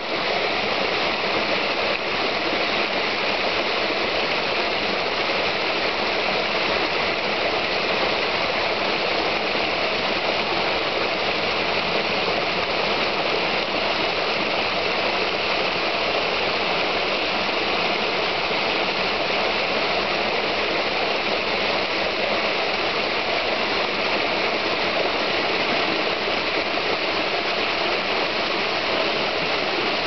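Shallow brook water rushing and splashing over a small ledge of rocks and sticks, a steady, unbroken sound.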